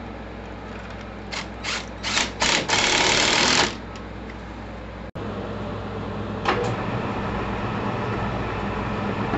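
A cordless drill is squeezed in several short bursts and then run for about a second, working at the steel shaft where it passes through a wall-mounted flange bearing. After a cut a steady machine hum follows.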